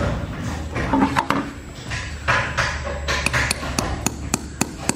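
A hammer striking in a quick, even series, about four blows a second, starting about three seconds in. Before that there is a steady low hum with some clattering.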